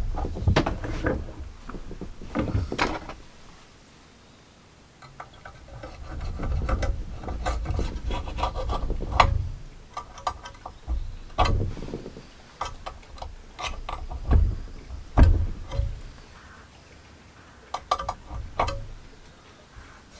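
Hands and tools working at a chainsaw guide bar with a stuck, gummed-up sprocket tip: irregular rubbing and scraping with scattered knocks and clatter.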